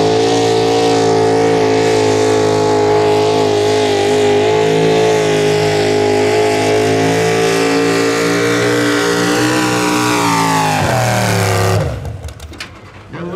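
Diesel pickup truck engine held at high revs under full load while pulling the sled, loud and steady. Near the end the revs fall, and then the sound drops away suddenly.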